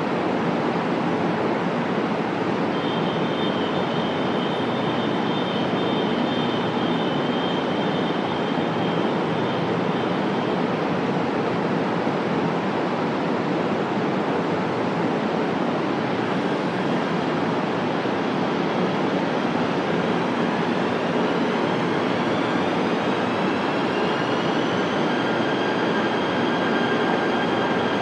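KTM Komuter electric multiple-unit train standing at the platform, its onboard equipment giving a steady hum and rush. A pair of high steady tones sounds from about three seconds in to about ten, and about twenty seconds in a whine rises and then holds steady.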